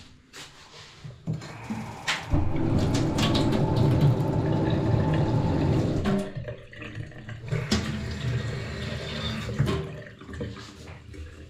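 Water running hard from a kitchen faucet into the sink for about four seconds, then running more softly with a few clicks and knocks.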